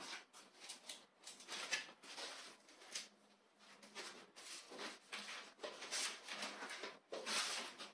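Foam and plastic packaging of a resin 3D printer being handled and pulled at: a string of soft, irregular rustles, scrapes and small clicks.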